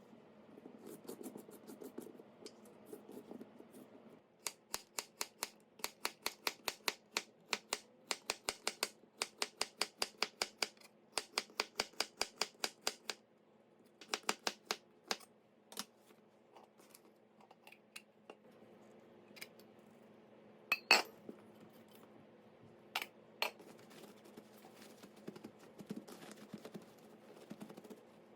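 Kitchen handling sounds over a faint steady hum. There is a long run of quick, evenly spaced sharp clicks at about four a second, then a shorter run. After that come scattered clicks and taps with one louder knock.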